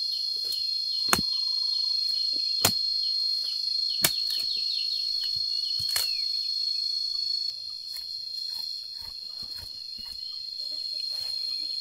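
Steady, high-pitched drone of a chorus of insects, such as crickets, with a few sharp knocks in the first half, about one every second and a half. The drone gets a little quieter about two-thirds of the way through.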